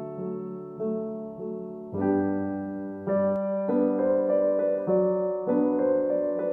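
Background piano music: gentle notes and chords played at an even pace, changing about every half second.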